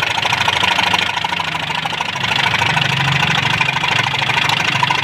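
Hyundai Verna engine idling with its tappet cover off, making a rapid, steady ticking ("tak tak tak") from the valve train. The mechanic suspects the rockers or lifters, though the lifters are new.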